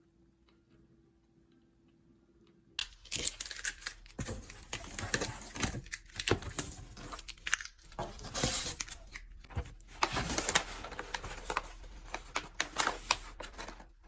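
Packaging being torn open and crinkled in rapid, irregular rustles, starting suddenly about three seconds in after a faint steady hum.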